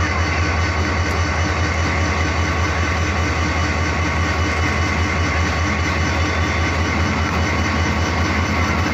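Diesel locomotive engine running with a steady low drone as it approaches, hauling a passenger train.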